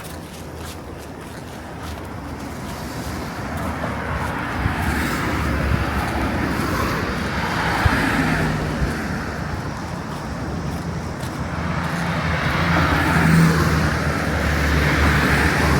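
Road traffic: motor vehicles passing close by, their engine and tyre noise swelling about halfway through and again near the end.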